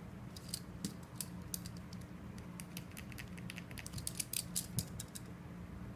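A pen writing on paper: quiet, irregular small scratches and taps, thickest about four to five seconds in, over a faint steady hum.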